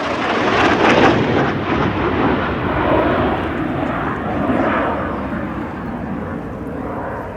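Jet aircraft flying past: a loud roar that comes in suddenly, is loudest about a second in, then slowly fades as it moves away.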